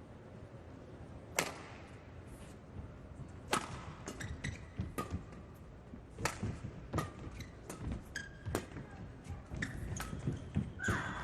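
Badminton rally: racket strings hitting the shuttlecock with sharp cracks about every one to one and a half seconds, with shoes squeaking on the court floor between shots.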